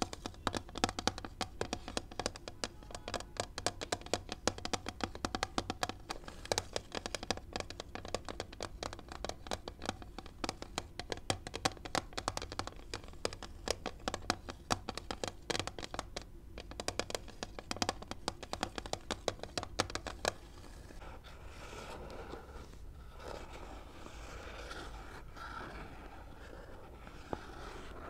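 Long fingernails tapping and scratching quickly on a clear plastic phone-case package, a dense run of sharp clicks. About two-thirds of the way through it turns into a steadier scratching and rubbing.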